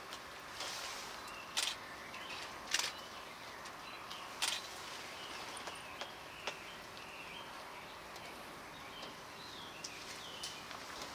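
Outdoor background noise with faint, scattered bird chirps, and three short sharp noises in the first half.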